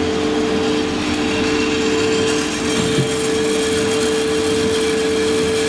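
Santoker R6 6 kg drum coffee roaster running with a steady hum and whir, with an occasional faint crack from the beans as first crack tails off.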